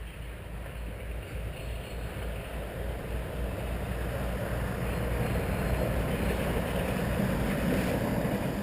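Lumber truck approaching on the road, a rumble of engine and tyres that grows steadily louder, loudest in the second half.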